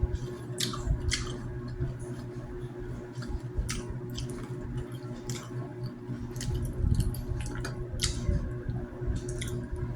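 Someone eating: scattered wet chewing and smacking sounds with small sharp clicks, over a steady low hum.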